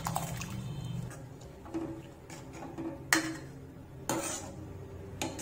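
Steel ladle and steel cup knocking and scraping against an iron kadai as cooked toor dal is scraped in and stirred into the rasam. A few separate clinks, the sharpest about three seconds in, and a scrape about a second later.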